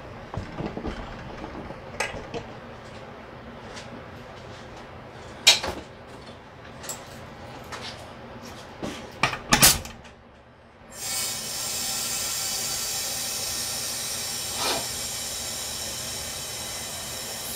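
Sharp metal clicks and knocks as the wing-nut clamps on a resin-casting pressure pot's lid are turned down, loudest around five and nine seconds in. About eleven seconds in, a steady hiss starts: compressed air flowing into the pot through the hose on its inlet as it is pressurized.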